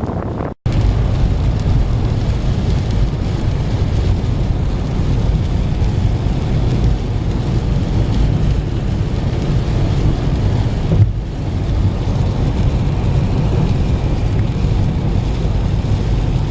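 Steady low rumble and hiss of a car driving in heavy rain, cutting out briefly near the start.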